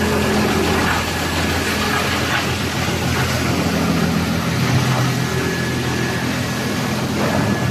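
Industrial wood crusher for chipping logs, running steadily with a low engine-like hum and a constant hiss.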